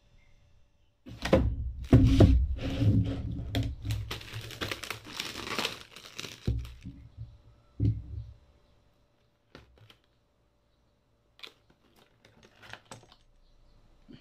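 Plastic packaging being torn open and crinkled, about five seconds of dense rustling, followed by two dull knocks and a few light clicks as the gas hose and regulator are handled.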